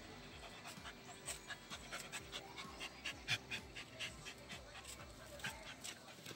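Dogs play-wrestling, with faint quick panting breaths coming in short, irregular strokes several times a second.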